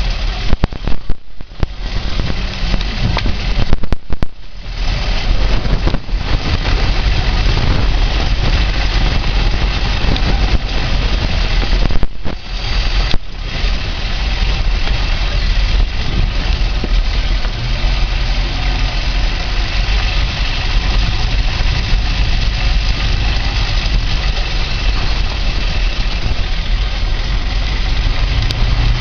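Zastava Yugo 45's small four-cylinder engine running as the car drives over a rough dirt track, heard from inside the car, with uneven jolts and bumps. The sound thins out briefly three times in the first half.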